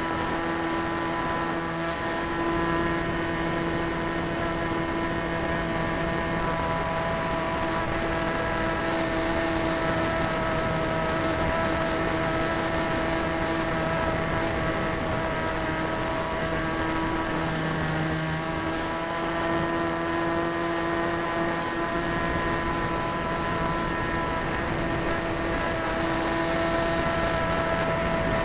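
Super Tigre .90 two-stroke glow engine of a radio-controlled model plane running steadily in flight, its pitch wavering slightly, heard from a camera on the plane's tail with wind rush over the microphone.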